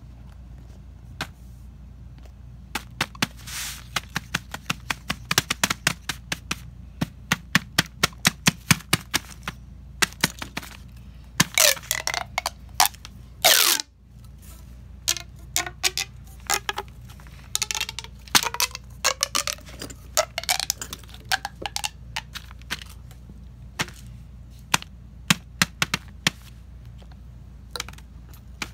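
A plastic pop tube fidget toy being stretched and squeezed: quick runs of sharp clicks and pops as its ribbed sections snap open and shut, with a couple of stretches giving a rising and falling ringing tone.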